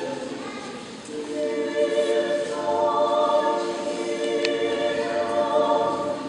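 Orthodox church choir singing liturgical chant a cappella, slow held chords in several voices, swelling louder about a second in.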